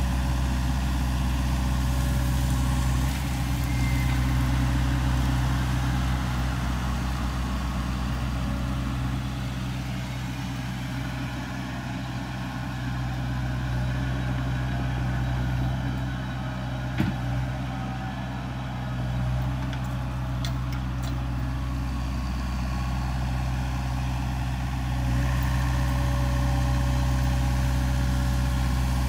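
Sany SY50U mini excavator's diesel engine running steadily under a Mongo flail mulcher. The engine note drops about three seconds in and comes back up near the end, with a single sharp knock in between.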